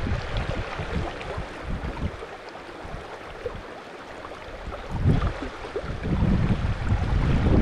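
Wind buffeting the microphone over the steady rush of river water. The gusts are strong at the start, ease off for a couple of seconds in the middle, and pick up again about five seconds in.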